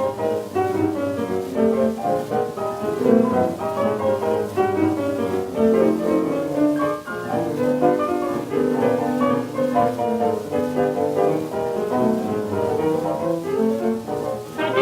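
1920s hot jazz dance band playing from a 78 rpm record, a busy passage of quick notes.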